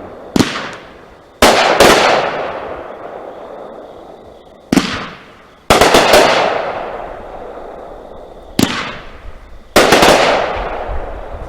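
Raccoon Fireworks 'Hazmat' 500-gram fan cake firing: about nine sharp bangs at irregular intervals, some in quick pairs, each trailing off in a long fading hiss.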